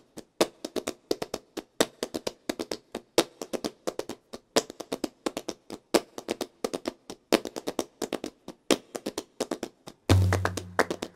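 Flamenco palmas: hand-clapping in a quick rhythmic pattern of sharp claps, with a low note sounding briefly about ten seconds in.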